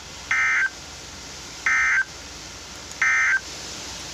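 Emergency Alert System end-of-message data tones: three short, identical bursts of buzzy two-tone digital squawk, about a second and a half apart, marking the end of a severe thunderstorm warning broadcast.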